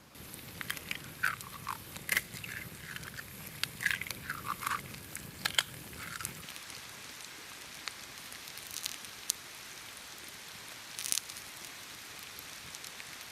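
Wood campfire crackling, with sharp pops scattered throughout and a few short squeaky chirps in the first five seconds.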